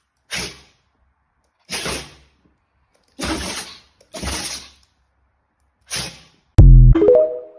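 A string of dog sneezes: about six short, sharp bursts a second or so apart with silence between them, the last near the end the loudest and followed by a brief pitched sound.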